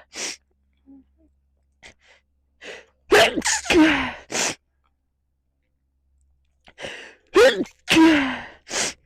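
A person sneezing repeatedly inside a motorcycle helmet during a sneeze attack. A short burst comes right at the start, then a cluster of sneezes with falling voiced cries about three seconds in, and another cluster near the end.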